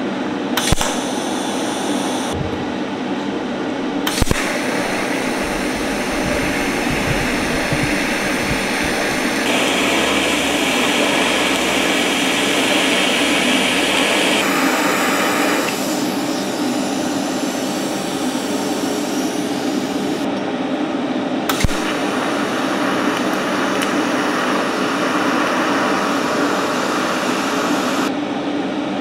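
TIG arc welding steel motor mount plates with a Prime Weld TIG 200 inverter welder: a steady hiss and hum that shifts in tone several times as the weld goes on, with a few sharp clicks.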